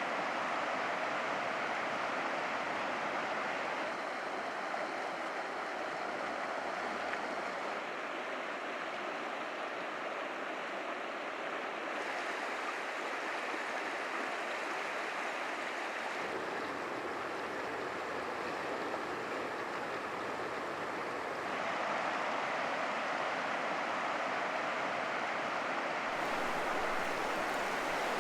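Steady rush of flowing river water. Its tone shifts abruptly several times.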